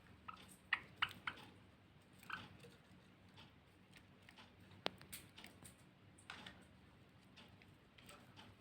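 Finches making a few short, faint chirps, several in the first second or so and more later, mixed with light clicks and rustles. One sharp click comes near the middle.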